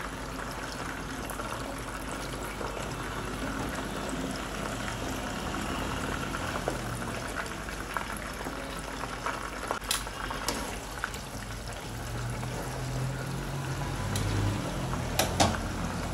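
Yam slices deep-frying in hot oil: a steady bubbling sizzle, with a couple of faint clicks in the second half.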